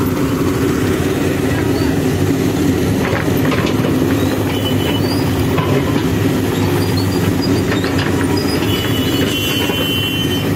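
Diesel engine of a Manitou backhoe loader running steadily under load as the backhoe arm works, a continuous low drone with a few faint knocks.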